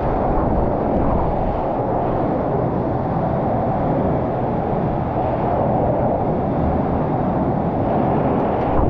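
Self-serve car wash high-pressure wand spraying water onto a car, a steady rushing spray.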